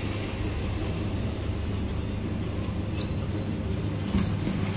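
Hands handling a nylon cast net and its clear plastic packing, with short rustles and crinkles about three seconds in and a louder burst of crinkling near the end. A steady low hum runs underneath.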